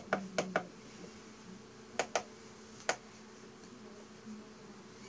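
Quick clicks of an egg incubator's control-panel buttons being pressed to step a setting: four rapid presses at the start, two about two seconds in and one shortly after. Under them runs the steady low hum of the incubator running.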